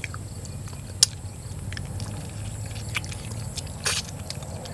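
Eating sounds of people chewing pieces of spicy stir-fried eel eaten by hand: scattered short, sharp mouth clicks and smacks, one loud smack about a second in and another near the end, over a low steady background hum.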